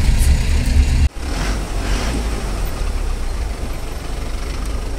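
A car's engine and road rumble, steady and low, with an abrupt break about a second in, after which the rumble continues somewhat quieter.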